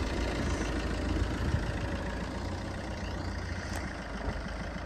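Car engine idling, a low steady rumble.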